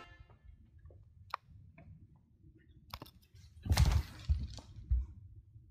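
A person dropping onto a wooden floor with the camera in hand: a few faint clicks, then a cluster of heavy thuds and rustling about four seconds in and one more thump about a second later.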